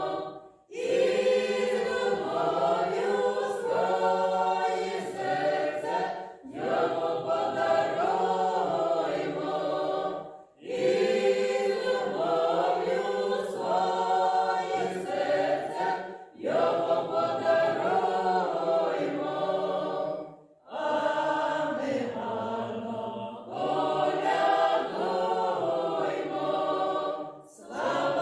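A small mixed choir of men's and women's voices singing a Ukrainian Christmas carol (koliadka) a cappella, with no instruments. The singing comes in phrases of a few seconds, with short breaks between them.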